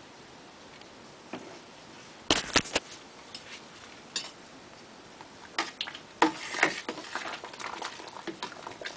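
Clicks and light knocks against a metal brewing pot of boiling wort, over a faint steady hiss. A few sharp knocks come about two and a half seconds in, then scattered clicks grow busier over the last three seconds.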